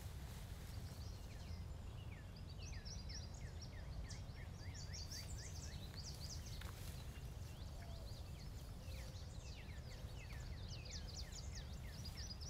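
Several birds chirping and singing outdoors, many short high chirps overlapping through the whole stretch, over a steady low rumble of background noise.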